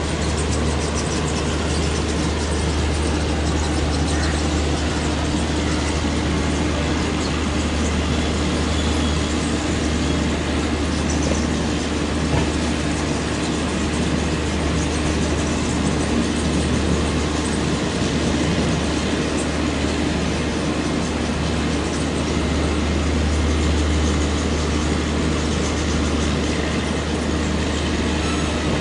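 Indian Railways Duronto express train running, a WAP7 electric locomotive hauling: a steady low drone and rumble that carries on without a break.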